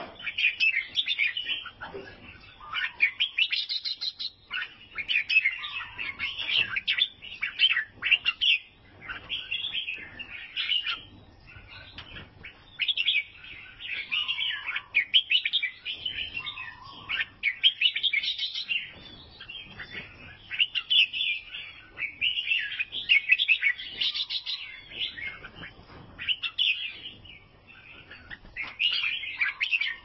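Albino bulbul singing a run of short, bright chirping phrases, one every second or two.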